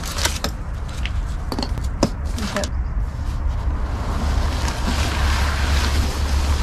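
Wind rumbling on the microphone, stronger in the second half, with sharp clicks in the first few seconds as the straps on a rooftop tent's cover are worked loose. Near the end comes the rustle of the canvas tent lifting open.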